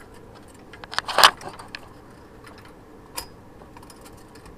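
Light clicks and knocks of a CPU heatsink being handled inside a PC case: a quick cluster about a second in, then a single sharp click about three seconds in.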